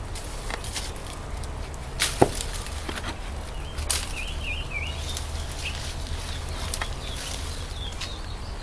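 A few sharp wooden knocks and cracks, the loudest about two seconds in, over a low steady rumble, with a faint bird warbling briefly near the middle. No chainsaw motor is running.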